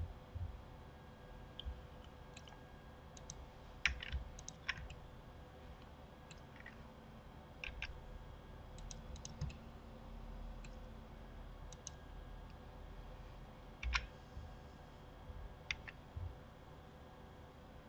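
Irregular clicks of a computer mouse and keyboard, a dozen or so short sharp ones spread out with gaps of a second or more, against a faint steady hum.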